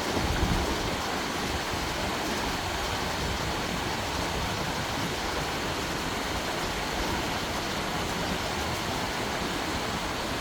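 Mountain valley stream rushing steadily over rocks, an even hiss of water. There is a brief low thump just at the start.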